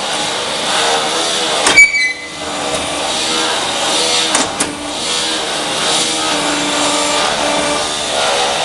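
Automatic paving-block machine running with a steady mechanical noise, one loud metallic clang with a brief ring about two seconds in, then two sharp clicks a little after four seconds.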